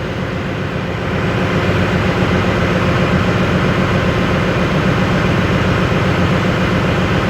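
Tanabe main air compressor running steadily: a loud, even machinery drone, heaviest in the low range, getting a little louder about a second in.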